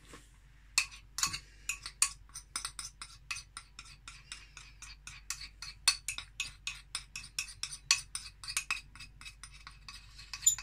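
Rapid clinking taps of kitchenware, about four or five a second, knocking custard powder into a mixing bowl. The powder is sticking and won't come off, probably having got moist.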